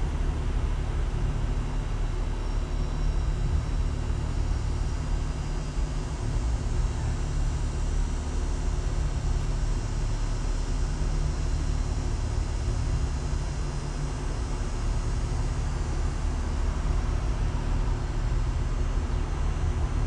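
Steady low rumble of outdoor background noise, unchanging throughout.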